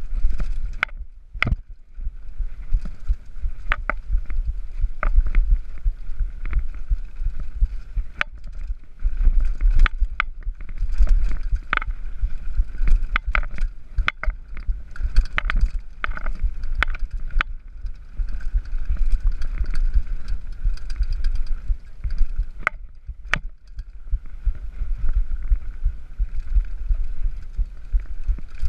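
Mountain bike riding fast down rough forest singletrack: a constant rumble of wind and vibration on the microphone, with many sharp clicks and knocks as the bike rattles over rocks and roots.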